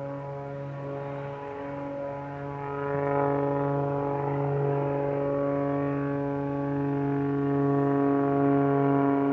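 Propeller airplane in flight: a steady droning tone with strong even harmonics, growing louder about three seconds in as it comes closer.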